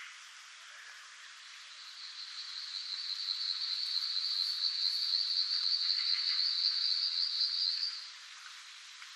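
Night chorus of frogs: a long, high trill swells from about two seconds in and stops about a second before the end, over fainter, scattered calls.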